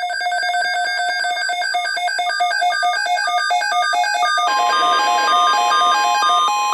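Weather alert tones: rapid electronic beeps hopping between a few pitches. About four and a half seconds in, a steady single tone joins them, the 1050 Hz NOAA Weather Radio warning alarm tone that signals a weather alert broadcast.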